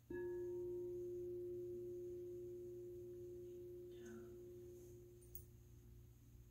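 A hand-held frosted quartz crystal singing bowl is struck once with a mallet and left to ring. It gives one steady low tone with fainter overtones above it, slowly fading away.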